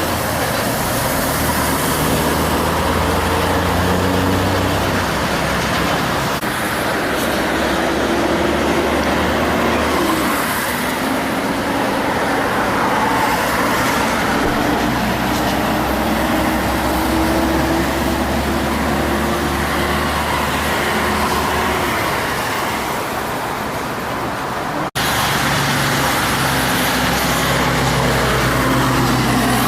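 Heavy diesel trucks passing on a highway, their engines running over steady road and tyre noise, with engine notes slowly rising as they pull and accelerate. A brief break in the sound near the end.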